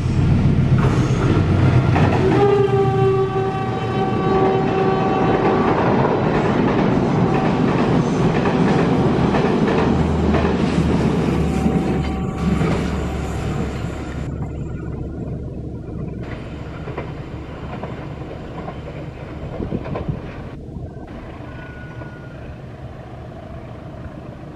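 Passenger train passing close by, its wheels rumbling and clattering on the rails. The locomotive's horn sounds a held chord from about two to six seconds in. The rumble slowly fades as the coaches move away.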